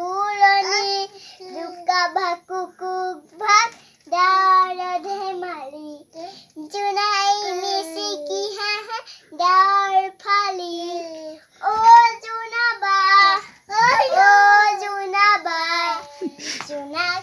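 A child singing an Assamese children's song unaccompanied, in short phrases with brief pauses between them.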